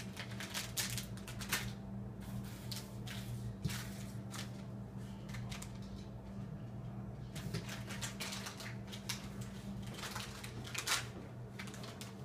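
A cat batting a small object across a hardwood floor: irregular light clicks and taps, coming in clusters.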